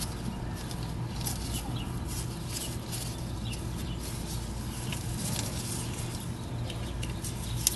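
Gloved hands working rubber coolant hoses and a hose clamp on a heater valve: scattered short high squeaks and small clicks over a steady low hum, with one sharp click near the end.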